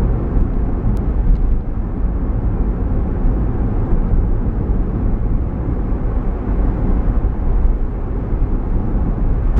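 Steady low rumble of a car driving along a city street, heard from inside the cabin: road and engine noise.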